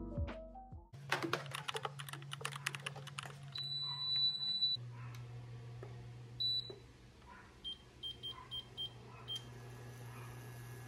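Xiaomi induction cooker control beeps: one long high beep as it powers on, a short beep, then a quick run of about six short beeps as its knob is turned to set the heat, over a steady low hum. Clattering clicks of things being handled come first.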